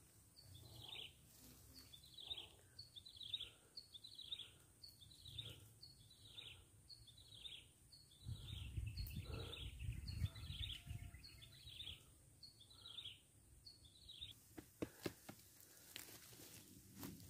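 A bird calling a long, evenly paced series of short high notes that slide downward, about two a second, then stopping near the end. A low rumble runs under the middle, and a few sharp clicks come near the end.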